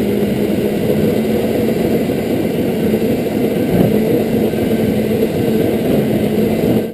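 Go-kart running at speed, heard from on board: a steady, dense drone with a low hum that cuts off suddenly near the end.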